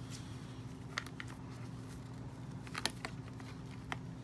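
Scattered small clicks and taps of a doll being handled and pushed into a plastic doll stand, the sharpest clicks a little under three seconds in, over a steady low hum.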